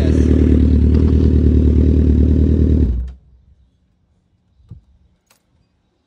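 Four-cylinder sportbike engine running steadily on new spark plugs while it is checked for a misfire, then shut off about three seconds in, the sound stopping abruptly. A couple of faint clicks follow.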